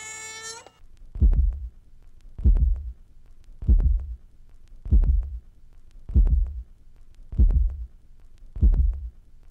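Heartbeat sound effect on a trailer soundtrack: a slow, steady run of seven deep thumps about 1.2 seconds apart. A sustained pitched tone with many overtones cuts off just before the first beat.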